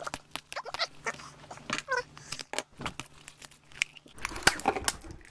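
Plastic surprise egg being twisted and pulled open by hand: a scatter of sharp plastic clicks and snaps, with a short squeak about two seconds in and the rustle of the wrapped contents coming out.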